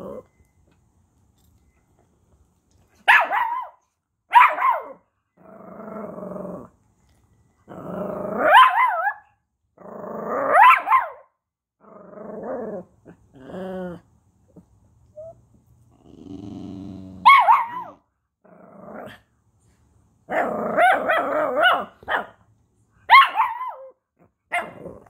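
Two small dogs, a Chihuahua and a schnauzer-type dog, trading growly grumbles and short high barks back and forth. The sounds come as a string of separate calls with pauses between them, thickest near the end.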